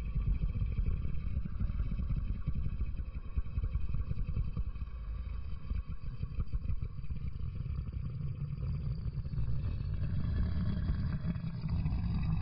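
A steady, low, rough rumble.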